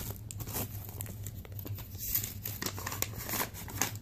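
A mailing package being handled and crinkled by hand: irregular crumpling and crackling of the packaging as it is checked for anything left inside.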